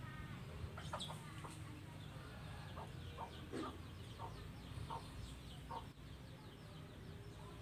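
Short animal calls, scattered irregularly about every half second to second, with faint high chirps throughout.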